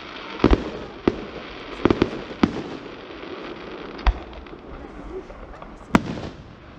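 Aerial fireworks shells bursting: sharp bangs at irregular intervals. There is a quick cluster of about six in the first two and a half seconds, then single bangs about four and six seconds in.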